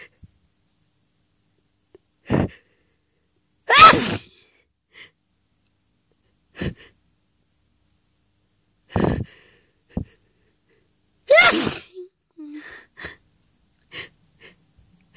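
Loud sneezes in a sneezing fit set off by sniffing flowers: two big voiced sneezes about four and eleven seconds in, with shorter, quieter breaths between.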